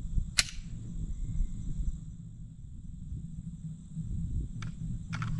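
Steady high chirring of insects such as crickets, over a low rumble. A sharp click about half a second in and a few fainter clicks near the end.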